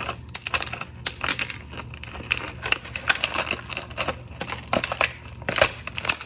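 Clear plastic bag crinkling and crackling in quick irregular crackles as its contents are pulled out by hand.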